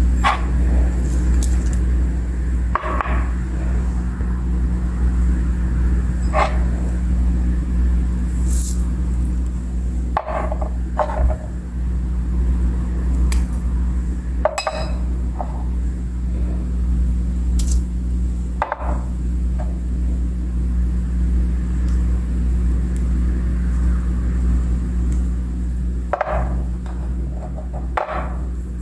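Scattered short clinks and knocks, a dozen or so, over a steady low hum.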